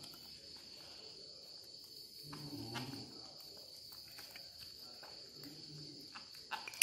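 Faint, scattered clicks of a metal spoon against a glass cup as cereal is scooped out, over a steady high-pitched whine in the background.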